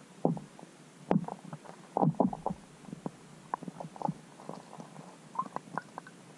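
Irregular soft knocks and clicks picked up underwater, a few louder ones in the first two seconds and lighter ticks after, over a steady hiss.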